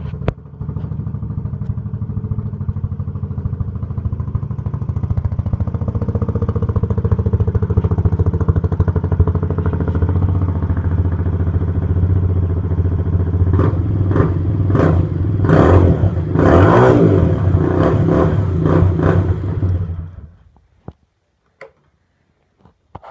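Engine breathing through a straight-through exhaust (straight pipe), running with a steady low pulse. From about two-thirds of the way in, a run of short, sharp throttle blips. It cuts off suddenly near the end, leaving a few faint clicks.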